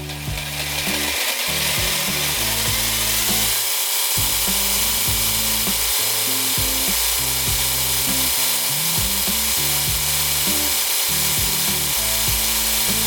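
Craftex CT169N ½-horsepower bench grinder and belt sander running, its sanding belt spinning with a steady whirring hiss while the belt tracking is adjusted. The sound comes up to full level in about the first second, then holds even.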